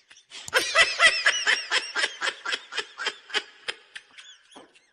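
Laughter: a rapid run of high-pitched 'ha-ha' pulses, about six or seven a second, that starts about half a second in and trails off over the last second.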